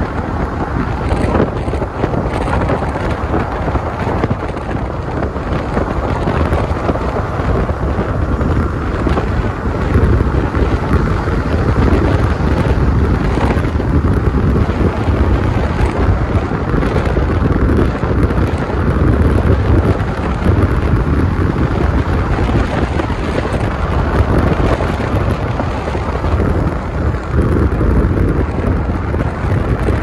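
Car driving: a steady rumble of road and wind noise, heaviest in the low end, swelling slightly after about ten seconds.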